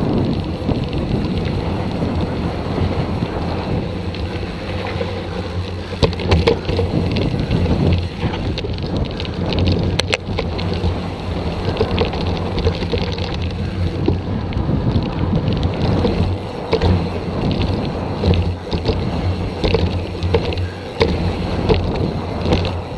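Mountain bike descending fast on a dry dirt and gravel trail, heard from a handlebar-mounted camera: a steady rush of wind and tyre noise, with frequent clicks and knocks from stones and the bike rattling over bumps.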